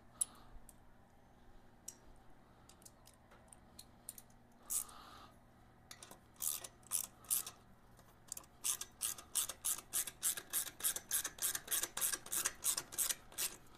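Ratchet wrench clicking as it tightens an exhaust pipe clamp bolt on a motorcycle: a few scattered strokes at first, then from about halfway a fast, even run of back-and-forth strokes, about four clicks a second.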